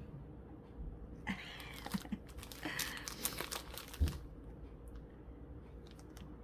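Crinkling and rustling of plastic packaging as wax melts are handled, with a light knock about four seconds in.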